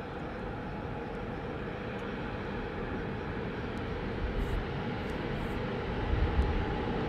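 Diesel locomotive running steadily as it approaches, slowly growing louder, with wind buffeting the microphone in the second half.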